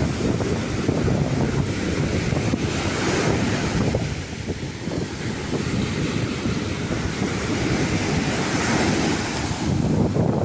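Ocean surf washing onto a beach, its hiss swelling twice, with wind buffeting the microphone as a steady low rumble.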